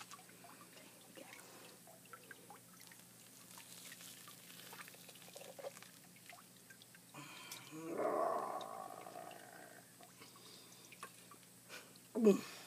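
Faint wet, sticky clicks of a rattlesnake's skin being peeled down off the carcass by hand. There is a louder muffled stretch about seven to nine seconds in, and a short, sharp sound just before the end.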